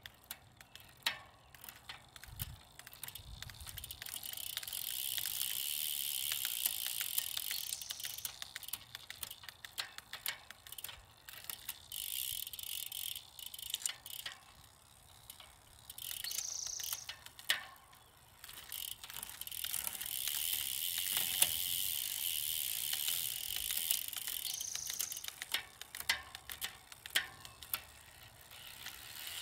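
Bicycle drivetrain turned by hand on a stand: the chain runs over a custom 10-speed cassette on a Capreo rear hub with a steady hiss that swells and fades in long stretches, broken by a few sharp clicks as the derailleur shifts through the gears.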